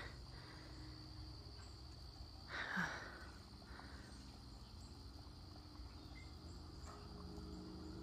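Faint outdoor ambience: a steady high-pitched insect trill over a low rumble, with one brief soft noise about two and a half seconds in.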